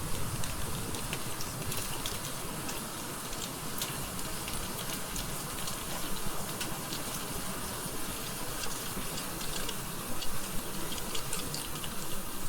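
Heavy rain falling steadily, a dense patter of individual drops over a constant wash.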